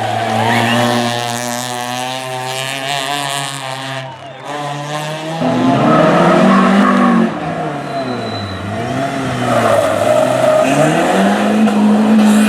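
Rally car engine held at steady high revs. After a brief dip about four seconds in, an engine revs up and down several times as it drives through the stage, then holds high revs near the end.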